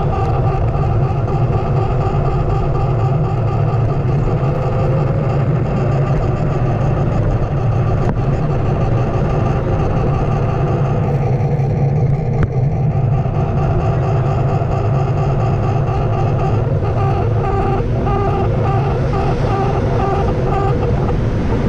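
Onewheel electric board riding on asphalt, heard from a camera mounted low on the board: a steady low hum and rumble of the motor and tyre on the road, with car traffic around it.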